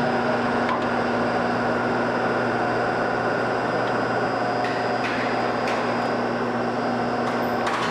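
Steady mechanical hum of an elevator car's machinery and ventilation inside the closed car, with a few light clicks as the sliding doors shut and the car sets off.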